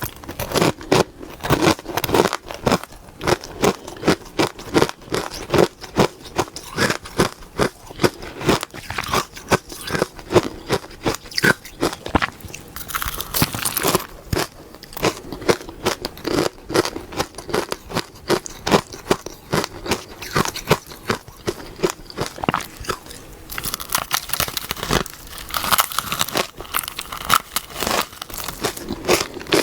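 Close-miked crunching of powdery shaved ice dusted with matcha powder, bitten and chewed in quick, dense crunches without a break.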